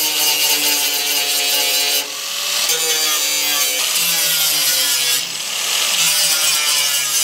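Angle grinder grinding down tack welds on a steel sheet-metal patch disc welded into a school bus body: a steady motor whine under a loud grinding hiss, which eases briefly twice, about two and five seconds in.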